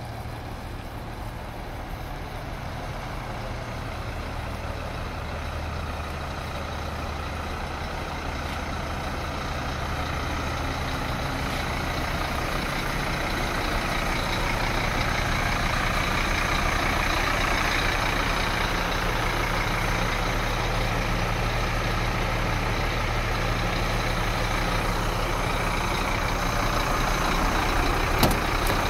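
Scania R310's turbocharged diesel engine idling steadily, growing louder as the cab is approached. Near the end comes a single sharp click of the cab door handle being pulled.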